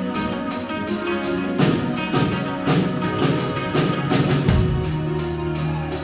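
Band music with no singing: a drum kit keeps a steady beat with cymbal strokes about four a second, over sustained guitar and bass notes.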